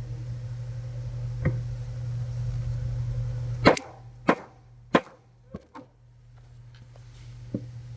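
Six sharp knocks over about four seconds, the first three the loudest, as the ratchet's tang is driven into a screwdriver handle. A steady low hum underneath cuts out at the first knock.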